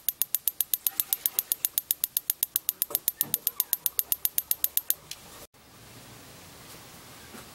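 Battery-powered electronic spark igniter firing at its electrode inside a propane jet burner tube: a rapid, even train of sharp ticking clicks, about six or seven a second, each one a spark arcing to the ground bolt. The clicking stops about five seconds in, leaving a faint steady noise.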